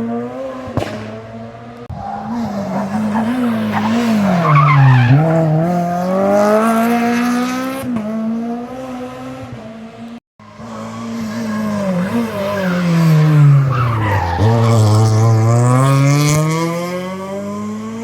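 Two rally cars heard one after the other, split by a sudden cut just after the middle. Each engine's note falls steadily to a low point and then climbs again as the car pulls away.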